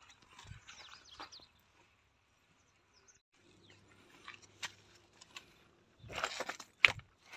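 Birds chirping briefly at the start. After a pause come scattered scuffs and then a louder spell of footsteps crunching over broken stone and rubble near the end, with one sharp click the loudest moment.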